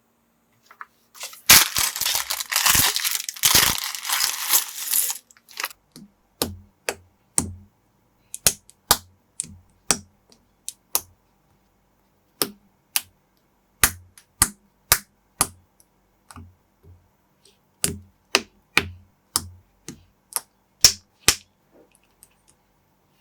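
Plastic crinkling for a few seconds, like a parts bag being handled, then a long run of sharp clicks from plastic building bricks and minifigure pieces being snapped together, roughly one or two a second.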